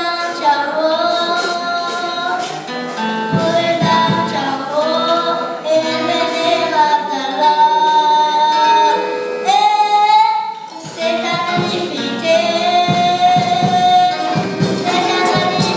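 Gospel singing led by a woman's voice with other voices joining, with some percussion beneath.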